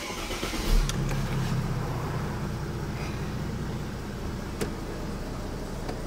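Mercedes-Benz E350 Coupe's V6 engine starting, heard from inside the cabin: a brief crank and a low thump as it catches just under a second in, then a steady idle that settles down.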